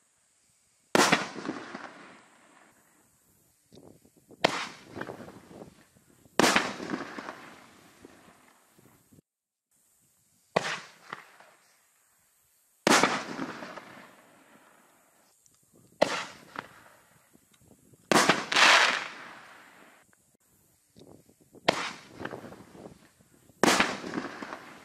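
6-inch canister fireworks shells fired one at a time from a single mortar tube: each launch thump is followed about two seconds later by a louder burst high in the air, its echo trailing off. Five bursts and four launches sound in turn.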